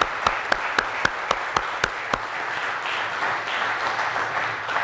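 Audience applauding, with one person's sharp, regular claps standing out close to the microphone at about four a second for the first two seconds. The applause dies away near the end.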